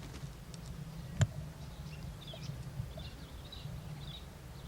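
Rural outdoor ambience: a steady low rumble with faint, scattered bird chirps. There is one sharp click a little over a second in.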